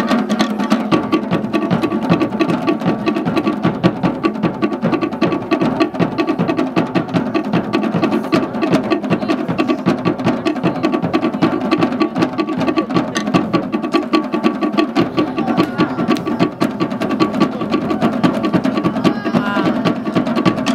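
Fast, driving drumming on wooden log drums, a rapid unbroken stream of strokes accompanying a Polynesian fire knife dance.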